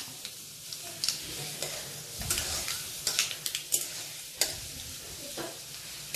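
A tempering of mustard seeds, Bengal gram and urad dal sizzling in hot oil in a steel kadai, stirred with a metal spatula that scrapes against the pan. Scattered sharp clicks sound over the steady sizzle.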